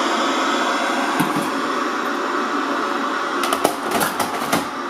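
Steady hiss of television snow static. In the last second and a half, several sharp clicks and clunks come as a VHS cassette is pushed into the slot of a TV/VCR combo.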